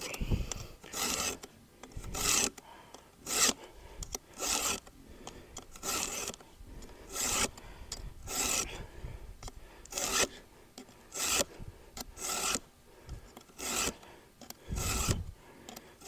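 Round chainsaw file in a Stihl file guide rasping across the cutter tooth of a chainsaw chain in a steady rhythm of strokes, about one a second. The worst, burred tooth is being filed down far enough to take the burr off its tip.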